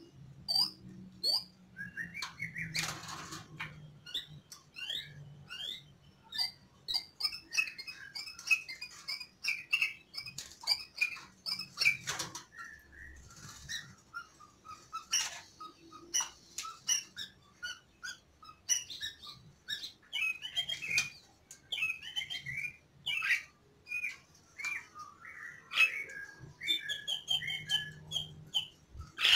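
White-rumped shamas calling: a busy run of short chirps, whistled notes and sharp clicks, with a couple of brief scratchy bursts about three and twelve seconds in.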